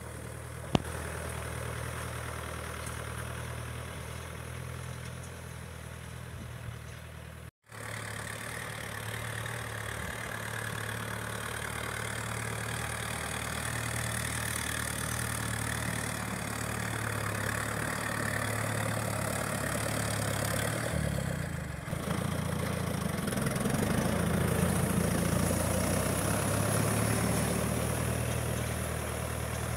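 Farm machine engine running steadily while tilling soil. The sound drops out for an instant about a quarter of the way in, and the low rumble grows a little louder about two-thirds of the way through.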